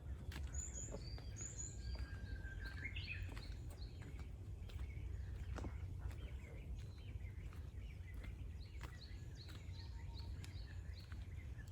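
Forest ambience: small birds chirping and calling, with a short series of high chirps near the start, a rising whistled note a couple of seconds in, and another run of chirps near the end, over a steady low rumble and scattered light clicks.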